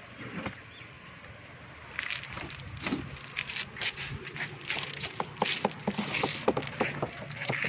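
Irregular light knocks and clicks, many of them, starting about two seconds in, over a low steady background hum.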